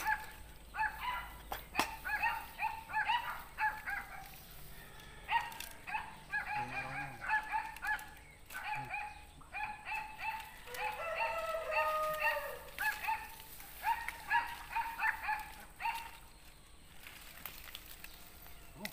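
An animal calling repeatedly: runs of short, clipped notes, several a second, that come and go in bouts, with one longer sliding call about eleven seconds in.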